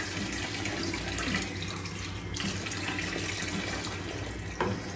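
Water being poured from a steel tumbler into a kadai of fried masala paste, a steady splashing pour. There is a short knock near the end as a spatula starts stirring in the pan.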